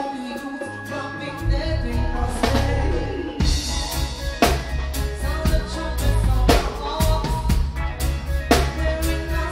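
Live reggae band playing, heard from beside the drum kit: a loud snare crack about every two seconds over heavy bass, which drops out for the first second and a half and then comes back in.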